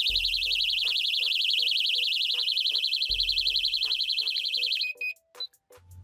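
The built-in 110 dB siren of a Technaxx TX-100 plug-in car alarm goes off, triggered by its PIR motion sensor: a loud, high-pitched, rapidly pulsing warble. About five seconds in it ends with a brief steady beep and cuts off abruptly. Background music with a steady beat plays underneath.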